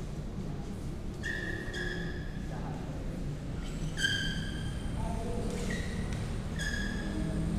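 Several short, high squeaks of sneakers on the badminton court mat, over the low hum of a large hall, with one sharp tap about four seconds in.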